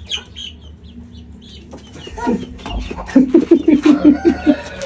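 Chicken clucking, with a quick run of about nine clucks in the second half from a bird being chased to be caught.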